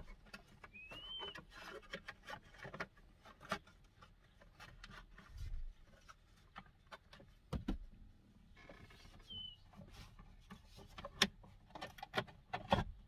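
Scattered light clicks and knocks as hands work the tilt steering column and its plastic covers, with sharper knocks around the middle and near the end. Two short high chirps come through, one about a second in and one about two-thirds of the way through.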